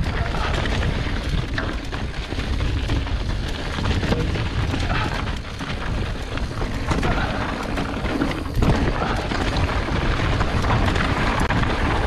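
Mountain bike riding over rocky desert singletrack: tyres crunching on loose stones and gravel, with many small knocks and rattles from the bike over the bumps. Heavy low wind rumble on the bike-mounted camera's microphone.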